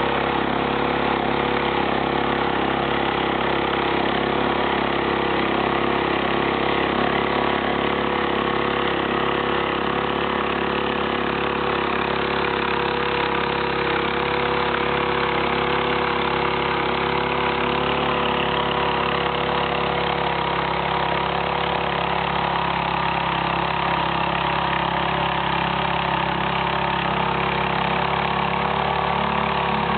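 Engine running steadily at an even speed, with a constant hum and no revving.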